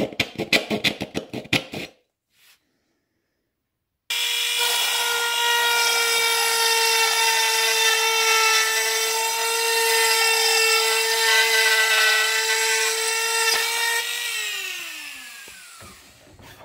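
A small hand saw rasps through a dried gourd shell in quick back-and-forth strokes, about five a second, stopping about two seconds in. After a pause, a Dremel rotary tool on a flex shaft with a 1/16-inch #569 grout removal bit runs with a steady high whine as it cuts the gourd, then is switched off and winds down, its pitch falling away.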